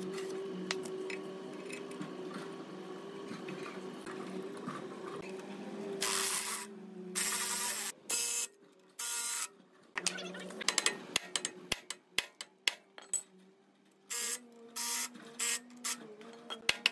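Makita cordless impact driver run in about six short bursts, each under a second, on the bolts of a rusty cast-iron engine pulley, with sharp metal clicks between the bursts.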